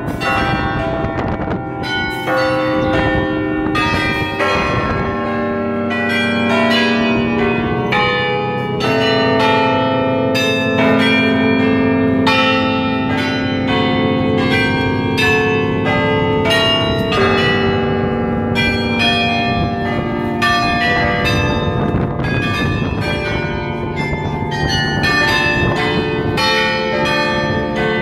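The carillon of the Belfry of Bruges: many bronze tower bells struck in quick succession, playing a melody with long overlapping ringing tones. It is loud.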